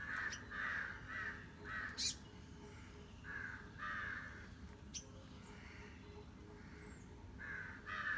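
Crows cawing in short runs of harsh, repeated caws: about four in quick succession at the start, two more about halfway through and two near the end. A sharp click comes about two seconds in, and a fainter one at about five seconds.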